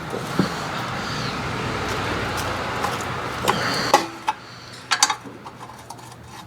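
Hand tools clinking and knocking on the rusted nuts of a cast exhaust manifold, a few separate metal knocks with a louder cluster about five seconds in. A steady hiss runs underneath for the first four seconds, then stops.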